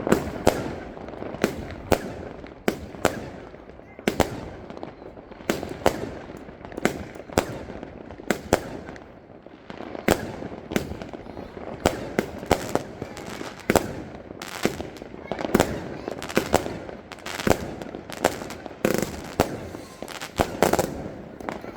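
Fireworks going off in a long irregular string of sharp bangs, roughly one to two a second, with rattling crackle between them.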